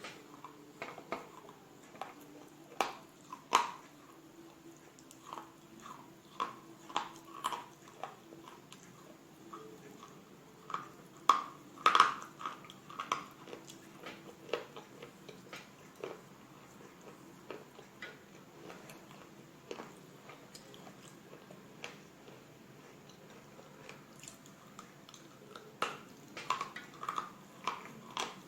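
Slate bar being bitten and chewed close to the microphone: sharp, brittle crunches at irregular intervals, with a cluster of the loudest bites near the middle and more near the end.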